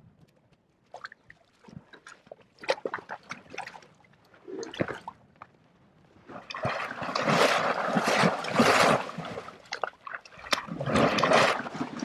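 Scattered drips and small splashes as a horse drinks at a shallow waterhole, then two long spells of heavy splashing, one from about six seconds in and another near the end, as a mare rolls and wallows in the muddy water.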